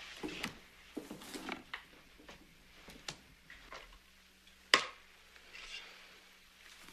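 Quiet shuffling and small knocks, then one sharp, loud smack a little past the middle: a wooden paddle striking.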